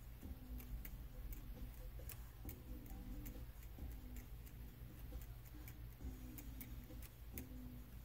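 Faint, irregularly spaced small clicks and ticks over a steady low electrical hum.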